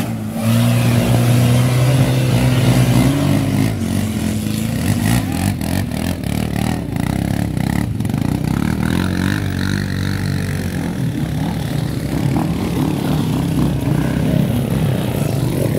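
A small off-road 4x4's engine revving hard under load as it drives through a muddy water pit, with water splashing; its note holds, then climbs about three seconds in. Later a dirt bike's engine revs as it crosses the mud.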